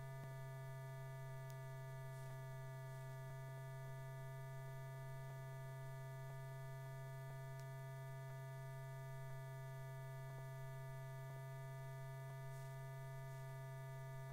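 Steady low electrical hum with a few fainter steady tones above it and faint scattered ticks: the background hum and noise of an old film soundtrack.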